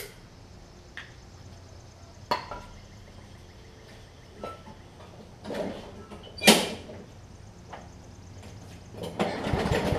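Several scattered clunks and knocks as the mower is handled, the loudest about two-thirds of the way in. Near the end the Kohler XT7 Courage engine is pull-started and cranks over roughly without catching, on a mower that has been failing to start.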